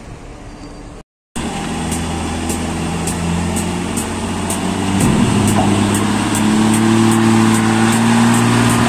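Diesel engine of an old, heavily loaded Hino cargo truck pulling hard, its pitch rising about halfway through as the truck climbs onto a steel ferry ramp.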